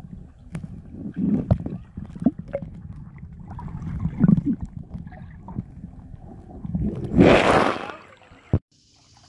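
Water sounds picked up by a phone microphone held underwater: a muffled rumble with scattered knocks and thumps, then a loud rush of water about seven seconds in as the phone comes up out of the water. Near the end it cuts suddenly to a faint steady high hiss.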